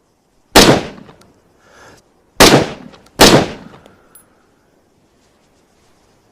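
Three shots from an SVD Dragunov semi-automatic rifle in 7.62×54mmR. The first comes about half a second in, then two more follow in quick succession about a second and a half later, each sharp crack trailing off in a short echo.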